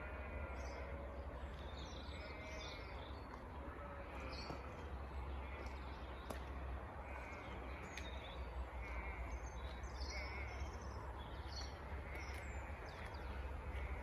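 Wild birds chirping and singing in short repeated phrases over a steady low rumble.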